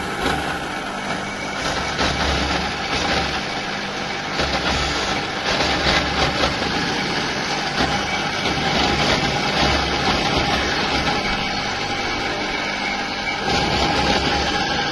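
Electric tomato-paste straining machine running steadily, its motor humming with a constant whine, while a low rumble swells and fades every couple of seconds.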